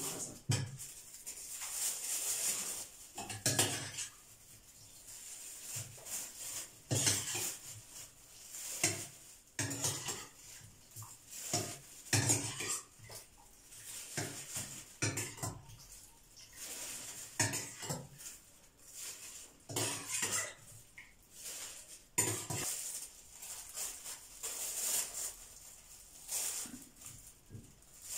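Metal spoon clinking and scraping against a steel pot, with plastic bag crinkling, in an irregular run of clicks and rustles as boiled carrot pieces are spooned into a freezer bag.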